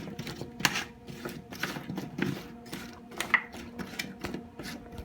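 Raw sweet potato fries being tossed and mixed with their seasonings: a run of irregular light clicks and scrapes.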